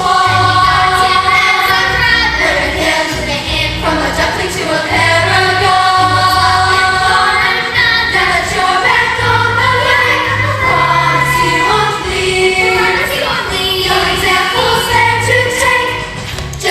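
A cast of young performers singing together in a musical-theatre number, with backing music and a steady bass line under held sung notes.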